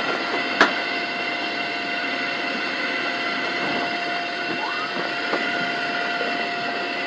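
Steady road rumble and hiss inside a moving ambulance, with a few faint steady tones, a click just after the start, and a faint wailing tone that rises near the end.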